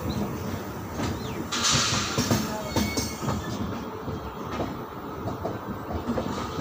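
Express passenger train running, heard from inside the coach: a steady rumble with irregular knocks and rattles, and a brief hiss about a second and a half in.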